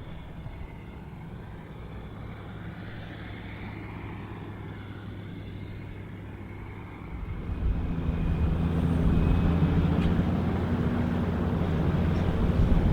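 Boeing 747-8F freighter's four GEnx jet engines during a landing. A low distant rumble grows much louder about seven seconds in and keeps building, with a few steady engine tones over the rumble.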